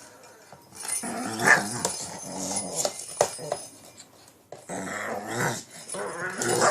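Shih tzu growling in two long bouts while attacking a cat toy, with a few sharp clicks in the first bout.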